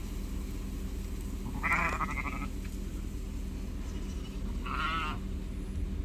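Sheep in a moving flock bleating twice, a few seconds apart, the second call wavering, over a steady low rumble.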